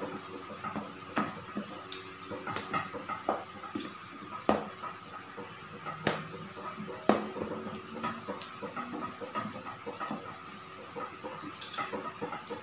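Thick batter being stirred by hand in a stainless steel bowl, with wet squelching and irregular clicks and knocks of the utensil against the bowl.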